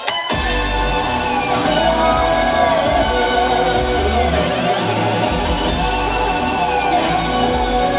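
Loud performance music without vocals. A fraction of a second in, the full arrangement comes in abruptly after a sparse, quiet moment, with heavy bass under a sustained high melody.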